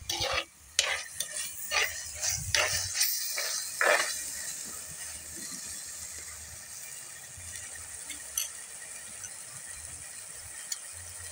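A steel spoon scraping and clicking against a bowl of ground paste, several sharp strokes in the first four seconds. Then a faint steady sizzle of onions, tomatoes and capsicum frying in oil in the pot.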